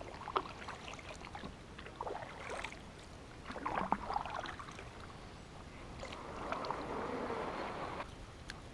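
Water splashing and sloshing around a small fishing boat, with scattered light knocks and two louder swells of water noise, one about halfway through and a longer one near the end.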